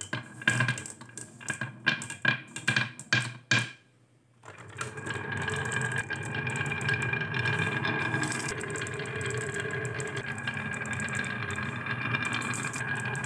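Glass marbles clicking as they are dropped one after another onto a wooden marble track and knock against each other and the wood. After a brief hush about four seconds in, the marbles are let go and roll together down the winding wooden groove in a steady rolling rumble.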